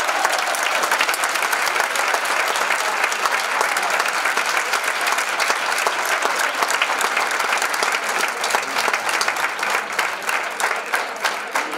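Audience applauding, a dense, steady clapping that thins a little near the end, with single claps standing out.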